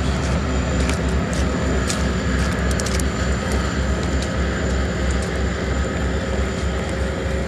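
Two Alaska Railroad diesel locomotives working as they pull a passenger train, heard across open water as a steady low rumble.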